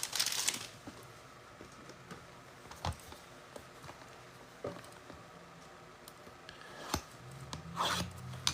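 Plastic wrapper on a trading-card box crinkling briefly, then a few soft clicks of handling, and more crinkling near the end as the box is unwrapped and opened.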